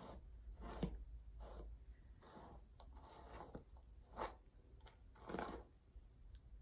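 Paddle hairbrush stroking through a short synthetic wig: several faint, scratchy swishes at uneven intervals, the strongest about four and five and a half seconds in.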